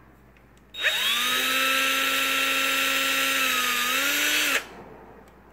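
BLACK+DECKER cordless drill motor triggered about a second in, spinning up quickly and then running freely at a steady high-pitched whine, its pitch rising a little just before it is released and stops.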